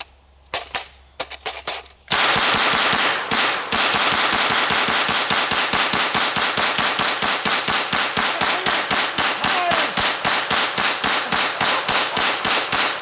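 Semi-automatic Thompson submachine gun in .45 ACP firing: a few single shots, then from about two seconds in a rapid string at about four shots a second, fired as fast as the trigger can be pulled.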